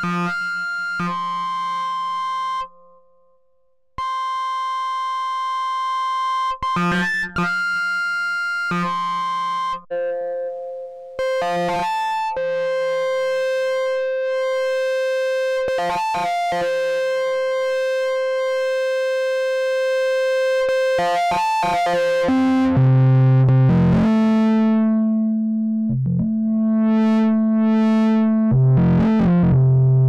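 Held synthesizer sine-wave notes from an Elektron Digitone run through an Elektron Analog Heat MKII, whose analog drive circuits add harmonics and square off the waveform. After about 22 seconds, lower notes come in louder and buzzier.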